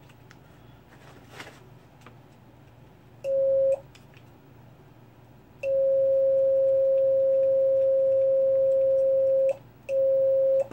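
Megaphone sounding a steady mid-pitched tone in three stretches, switching on and off abruptly: a short one about three seconds in, a long one of about four seconds, then a brief one after a short gap. The tone is heard while its control and wiring are being checked.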